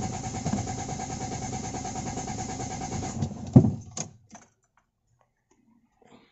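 Toyota 4A-FE four-cylinder engine cranking on its starter with a steady rhythmic churn and not catching, stopping with a clunk about three and a half seconds in. It is a hard-starting engine, which the mechanic puts down to weak spark from the ignition coil.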